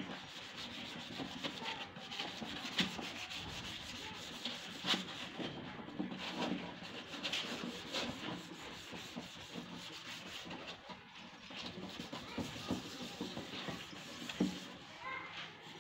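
Hand wet-sanding of a car headlight lens with sandpaper and water: a steady scratchy rubbing in repeated strokes.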